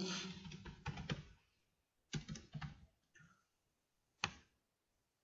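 Computer keyboard keys tapped in a few short, quiet bursts as a file name is typed, then a single click a little after four seconds, which fits a mouse click on the Save button.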